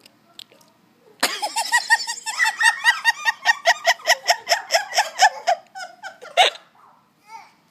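A person laughing hard in a long run of quick, high-pitched pulses, about four or five a second, starting about a second in and breaking off with a final sharp burst about five seconds later.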